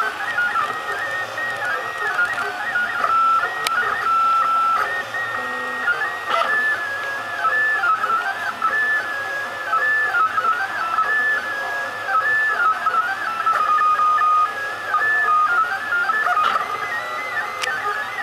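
Ultimaker 3D printer's stepper motors whining as the print head moves, the pitch jumping between a few high notes with each change of move speed and direction, with a few faint clicks.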